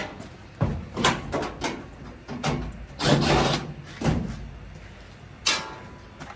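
Sheet-metal cabinet panels of a GE dryer being handled as the top is lifted and moved aside: a series of clunks and knocks, with a longer clatter about three seconds in and a sharp knock near the end.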